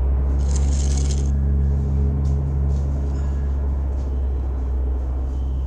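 Low, steady droning hum from an animated cartoon's soundtrack, heard through computer speakers, with a brief burst of hiss about half a second in.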